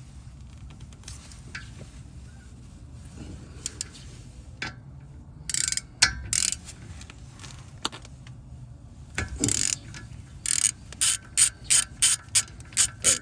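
Hand ratchet with a 14 mm socket clicking in short strokes as the brake caliper bolts are loosened. A few separate strokes come in the middle, then a quick run of strokes about two a second near the end.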